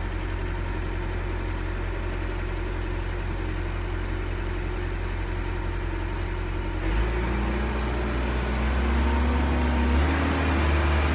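Kobelco SK135SR excavator's diesel engine running steadily. About seven seconds in, the note steps up louder and higher as the engine takes hydraulic load, and it rises again near the end.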